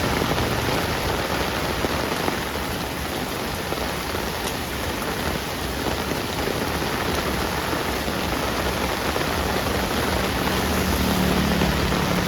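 Heavy rain falling steadily on a street, a dense even hiss of drops. A low hum swells faintly near the end.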